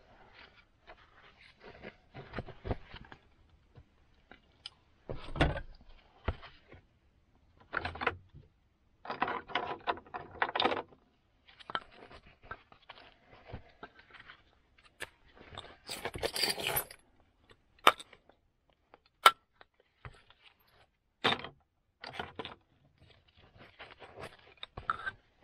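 Flint axe preform rubbed with a coarse abrading stone slab to prepare its edge for knapping, giving irregular gritty scraping and grating strokes, stone on flint. Later come a few sharp single clicks of stone and flint knocking together.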